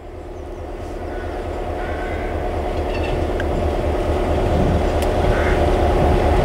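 Nohab MY-class diesel-electric locomotive approaching slowly, its GM two-stroke engine running with a steady low throb that grows steadily louder as it nears.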